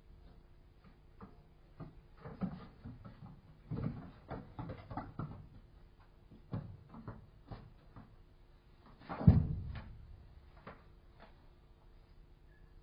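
Thumps and knocks of a leopard cub's paws and body on the wooden planks of a den box as it jumps in and scrambles across, with scattered light clicks. The loudest thump comes about nine seconds in.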